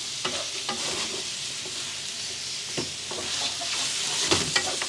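Chicken pieces sizzling as they sauté in a stainless steel wok, with a steady frying hiss. A wooden spatula stirs and scrapes against the pan several times, the loudest strokes near the end.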